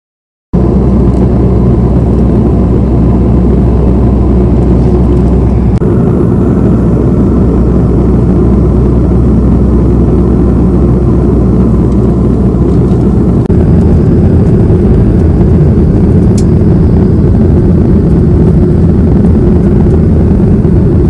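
Loud, steady cabin noise of a Boeing 737 in flight: jet engines and rushing air heard from a window seat, deep and rumbling. The sound changes abruptly twice, about 6 and 13 seconds in.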